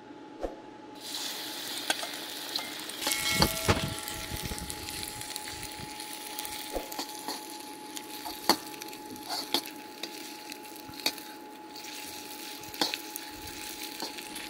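Strips of egg-and-cornstarch-coated pork sizzling in very hot oil as they are stir-fried, the sizzle swelling about a second in. Sharp knocks and scrapes of a utensil against the pan come through the steady hiss, loudest around three to four seconds in.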